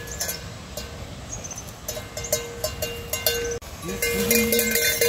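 Livestock bell clanking, a steady ringing tone renewed by irregular knocks, with a brief break a little past halfway.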